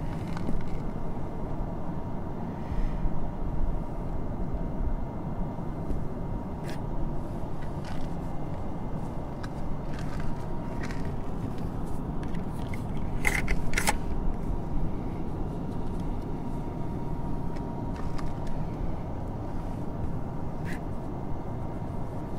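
Steady low outdoor rumble with a faint steady tone, broken by a handful of short clicks and beeps from button presses on a rail ticket vending machine's touchscreen and keypad, the loudest pair about halfway through.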